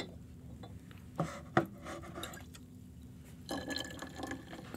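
Soda poured from a glass bottle into small cups, with a couple of light glass clinks and knocks about a second and a half in and the liquid splashing into the cups about three and a half seconds in.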